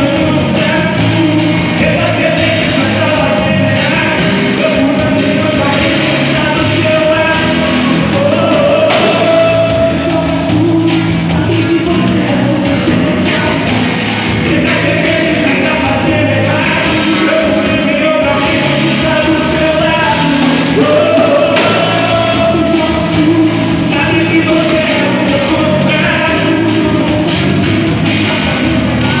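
A live band playing a song with a lead vocalist singing over it, loud and continuous.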